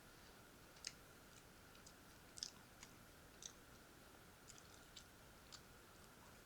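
A person eating up close, with soft wet mouth clicks and smacks of chewing coming at irregular intervals. The loudest comes about two and a half seconds in, over a faint steady hum.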